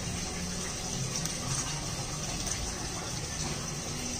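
Water running steadily, an even rushing hiss with no breaks, while a puppy is washed by hand.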